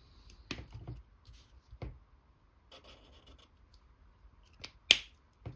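Ohuhu alcohol marker nib rubbing back and forth on a paper swatch card as a colour box is filled in, with a few light clicks, then a sharp click near the end.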